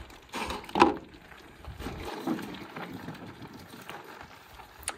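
Metal tongs handling a browned elk roast and setting it into a cast-iron Dutch oven of vegetables: a few soft knocks and scrapes, the loudest about a second in, and a sharp click near the end, over a low steady background hiss.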